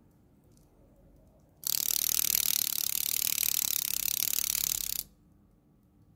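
Restored wind-up clock movement released and running, a loud rapid metallic buzz of fast ticks from its spring-driven gear train, starting about a second and a half in and stopping abruptly after about three and a half seconds.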